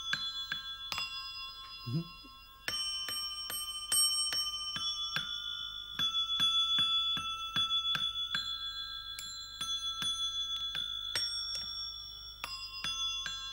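A set of small tuned bells struck one at a time with mallets, playing a simple melody. Each strike rings on, at roughly two strikes a second, with a short pause about two seconds in.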